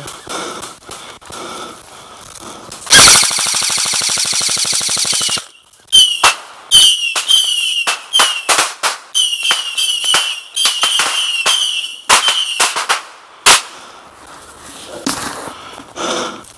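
Fireworks going off: a dense rapid crackle lasting about two and a half seconds, then a string of sharp cracks, many of them trailing a shrill whistle.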